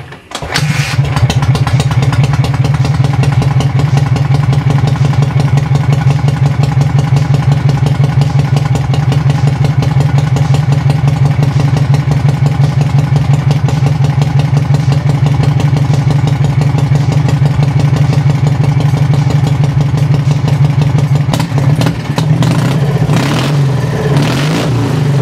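Dnepr MT motorcycle's flat-twin engine catching about half a second in and running at a steady idle, with a few blips of the throttle near the end.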